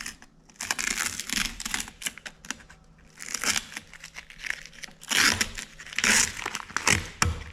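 Tape being peeled off a truck's side mirror and crumpled: irregular ripping and crinkling, with a short lull a little before the middle and the loudest stretch in the second half.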